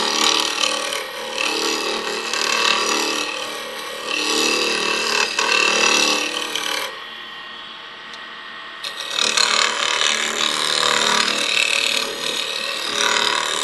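Wooden sphere spinning on a wood lathe while a fingernail gouge scrapes its surface, over the steady hum of the lathe; the cutting noise stops for about two seconds in the middle, then resumes. The scraping sound tells the turner the ball is not yet quite round.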